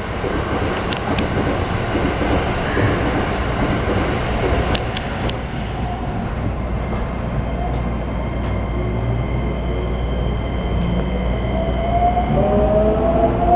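Keikyu New 1000 series train heard from inside the car while running, with a few sharp clicks in the first five seconds. Near the end the whine of its Toyo IGBT-VVVF inverter and traction motors rises in pitch as the train accelerates.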